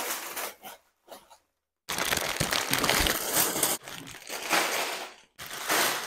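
Sealed plastic bags of toy building bricks crinkling and rustling, with the bricks inside rattling, as the bags are tipped out of a cardboard box and handled. The sound comes in several bursts broken by short silences.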